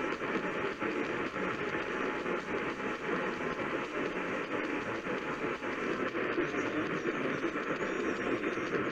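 Steady radio static from a weakly received station, an even hiss with fine crackle running through it.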